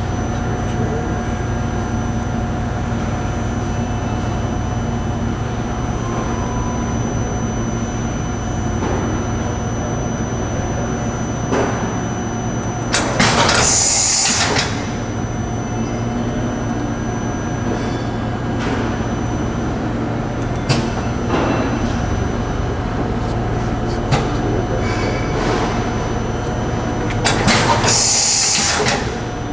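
Okuma & Howa Millac 438V CNC vertical machining center running with a steady hum and several held tones. Twice, about halfway through and again near the end, a loud hiss lasting a second or so comes as the automatic tool-change arm moves.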